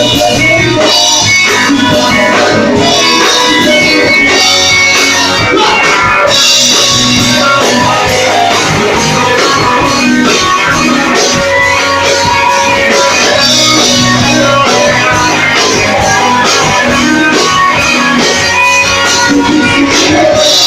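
Live rock band playing, with guitars and a drum kit, loud and steady.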